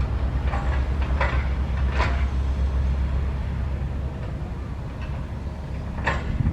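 SANY 135F excavator's diesel engine running with a low rumble that eases about four seconds in, with four short metallic clanks from the working machine.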